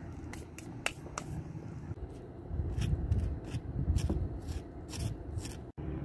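A butter knife spreading butter on pancakes, with short scraping and clicking strokes as the blade drags across the cakes and taps the plate. A low rumble swells under it in the middle.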